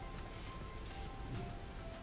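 Faint background music: a few soft held notes that change every half second or so, over low room hiss.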